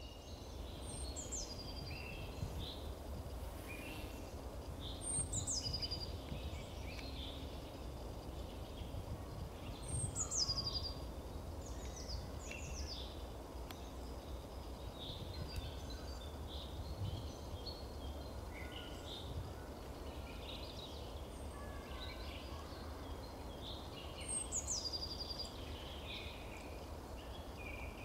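Wild songbirds singing: one repeats a short, high run of notes falling in pitch several times, with a long break midway, while other chirps come between, over a steady low rumble.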